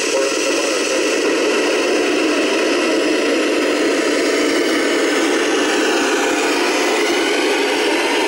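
Amateur radio receiver hissing with steady static, with no voice coming through: the ISS downlink signal is too weak to be heard under difficult reception conditions.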